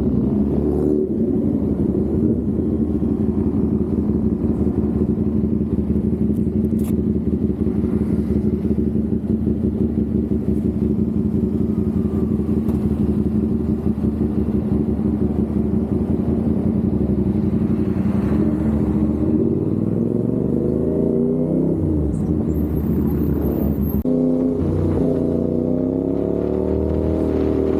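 CFMOTO 450SR's parallel-twin engine running at a steady pitch while cruising, then over the last several seconds revs rising and dropping repeatedly as the rider shifts gears.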